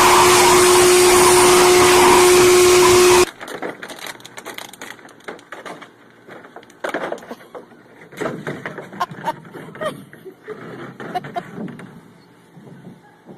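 Hand-held hair dryer blowing steadily with a constant droning tone, cut off abruptly about three seconds in. After that come much quieter scattered clicks and knocks.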